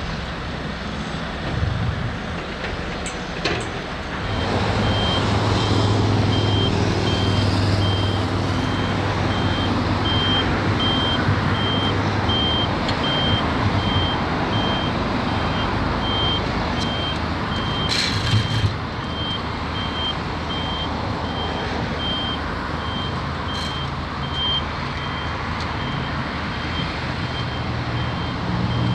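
Reversing alarm on a heavy vehicle beeping evenly, a little more than once a second, over a steadily running engine; the beeping and the louder engine start about four seconds in. A brief hiss about two-thirds of the way through.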